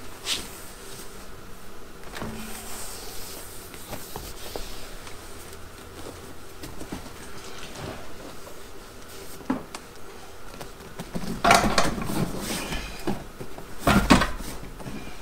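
Rear seat of a 1969 Pontiac GTO being worked into place by hand: rustling of the upholstery with scattered knocks and bumps, and a louder run of thumps and scraping about two thirds of the way in, then another near the end as the seat is pushed home.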